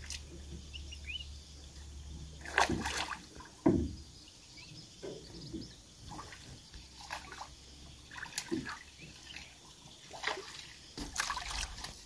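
Oars of a small rowboat, worked by foot, dipping and pulling through calm lake water: scattered splashes, sloshes and drips, with the loudest strokes about three and four seconds in.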